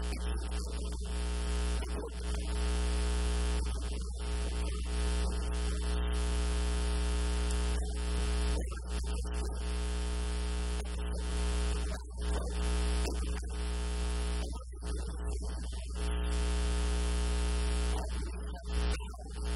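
Loud, steady electrical mains hum with a buzz of many overtones, its upper range briefly dropping out every few seconds.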